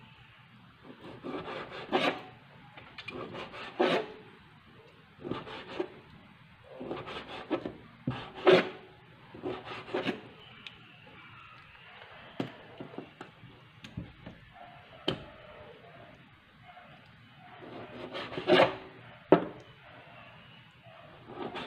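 Kitchen knife cutting raw pork into small pieces on a cutting board: irregular sharp knocks of the blade on the board, with rasping, scraping strokes between them. The loudest knocks come near the end.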